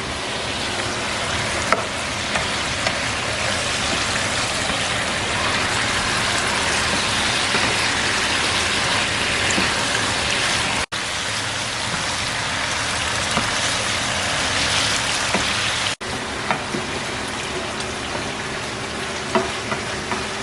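Chicken adobo sizzling and bubbling in a pan as its soy sauce and vinegar sauce, with a little water just added, cooks down. A steady hiss with a few light clicks.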